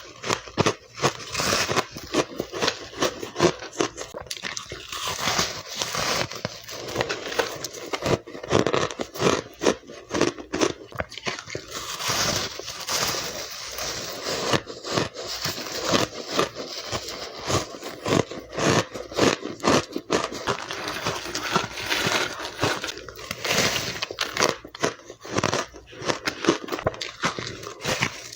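A person biting and crunching chunks of ice close to the microphone, a dense run of sharp, irregular cracks and crunches with no pauses.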